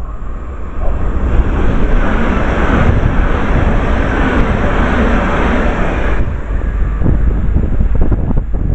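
A train passing through the station at speed: a rushing noise that builds about a second in and drops off sharply after about six seconds, over heavy wind buffeting on the microphone.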